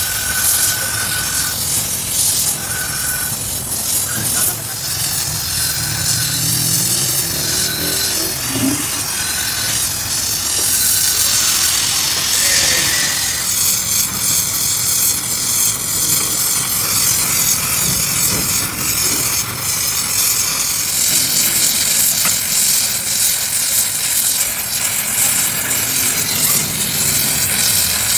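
Oxy-fuel cutting torch flame hissing steadily as it heats a steel gear.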